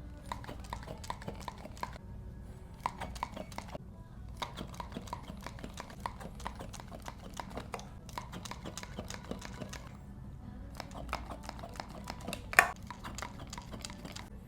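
A steady run of quick clicks and taps. About twelve and a half seconds in comes one loud, sharp crack: a joint cracking during a chiropractic adjustment.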